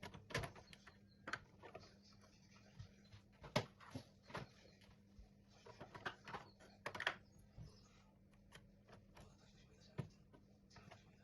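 Faint, irregular clicks and light knocks, as of small objects being handled, over a low steady hum; the sharpest knock comes about three and a half seconds in.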